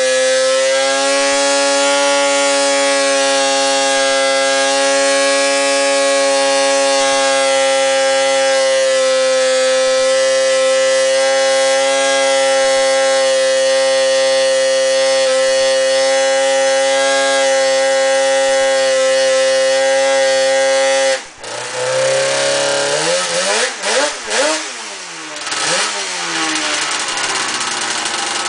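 Rotax 354 two-stroke twin snowmobile engine held at steady high revs under load on a dyno brake. About three-quarters of the way through it is cut back abruptly and the revs fall. It is blipped a few times, its pitch rising and falling, then settles to idle near the end.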